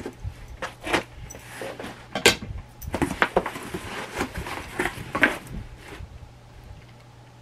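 Cardboard shipping box being opened by hand: a quick run of scrapes, knocks and rustles as the taped flaps are cut free and pulled open, dying away about five and a half seconds in.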